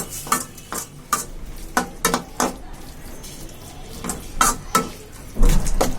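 A spatula scraping and knocking against a pan in irregular strokes while an onion-tomato masala with ginger-garlic paste is sautéed. The strokes come about every third of a second in small runs, with a louder clatter near the end.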